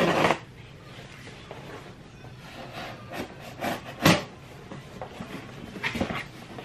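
Cardboard shipping box being opened and handled: a short scratchy tearing at the start, then rubbing and a few knocks of the cardboard, the loudest about four seconds in.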